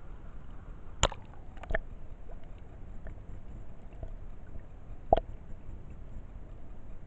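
Muffled underwater rumble from a camera held just below the sea surface, with sharp knocks about a second in, again shortly after, and a louder one about five seconds in.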